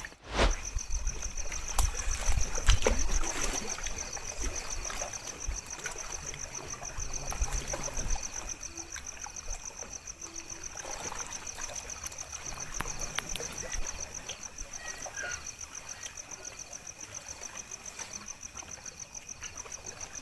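Lake water lapping and trickling, under a steady high-pitched pulsing chirp. There is a low rumble in the first few seconds and a cluster of sharp clicks about two-thirds of the way through.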